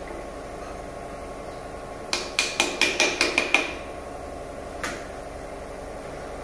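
Band-type piston ring compressor being ratcheted tight around a piston and its rings: a quick run of about eight sharp metallic clicks, roughly six a second, with a ringing tone, then one more click about a second later.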